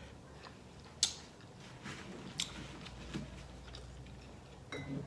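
Close-miked mouth sounds of someone eating: chewing and biting, with a few short, sharp clicks and smacks.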